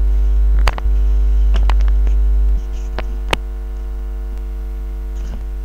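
Loud steady electrical mains hum from a faulty microphone, which buzzes constantly. The hum drops a little about halfway through, and a few sharp clicks sound in the first half.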